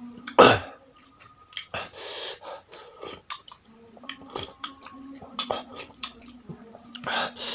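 Close-up eating sounds of spicy noodle soup with chilies: wet chewing with many mouth clicks, slurps, and heavy hissing breaths, with one loud burst about half a second in.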